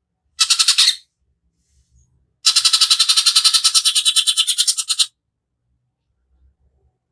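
Cucak ijo (green leafbird) singing harsh rapid trills, the 'tembakan kasar' (coarse shooting) phrase prized by bird keepers. A short burst comes about half a second in, then a longer rattling trill of about ten pulses a second lasting nearly three seconds.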